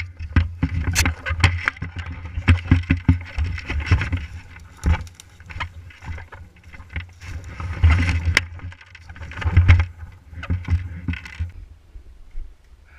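Irregular knocks, clicks and rustling over a heavy low rumble, close to a body-worn action camera. It is busiest for the first five seconds and again from about seven to eleven seconds in.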